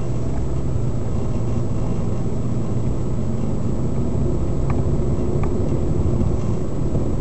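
Steady low rumble of a car's engine and tyres heard from inside the moving car, with a couple of faint clicks near the middle.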